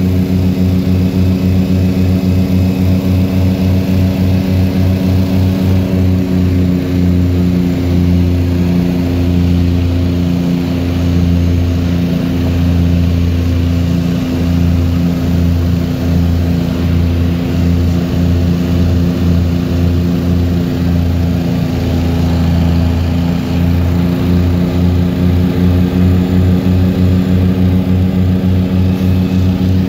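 Propeller-driven airliner's engines heard from inside the cabin: a steady drone with a low throbbing pulse that runs faster, slows in the middle, then quickens again.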